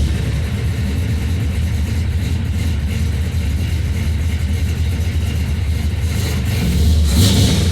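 The rebuilt, cammed, carbureted engine of an OBS Chevrolet C1500 pickup running with a steady low rumble, picking up near the end. The engine is fresh from its 500-mile oil change.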